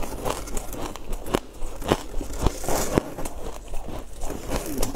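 Chewing and biting frozen sweet ice close to the mouth, a string of sharp, irregular crunches with crackling between them.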